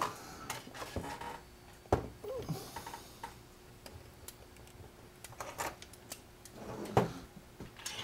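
Scattered clicks and knocks of hands handling things on a workbench: the open metal chassis of a frequency counter, its ribbon cable and tools. The sharpest knocks come about half a second, two seconds and seven seconds in.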